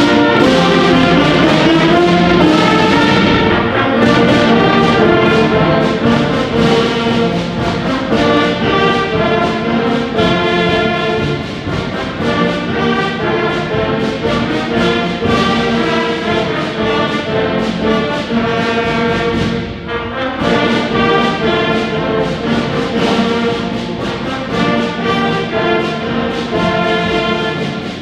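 A school band plays a piece with brass to the fore, trombones and trumpets prominent. It comes in loudly and suddenly right at the start and plays on without pause.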